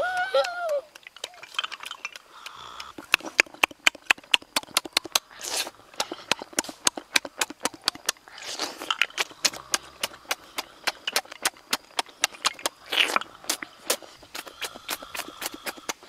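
Cooked snails being sucked out of their shells: rapid wet clicks and smacks, several a second, broken by a few longer slurps.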